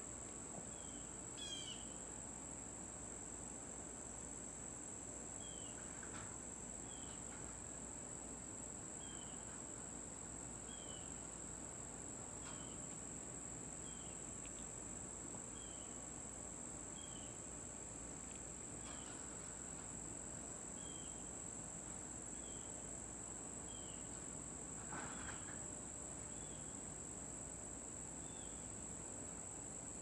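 Steady high-pitched insect chorus, with a short falling chirp repeating about once a second.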